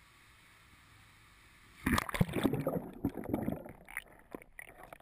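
Quiet at first, then about two seconds in the camera plunges into water with a sudden splash, followed by muffled underwater gurgling and bubbling in irregular surges.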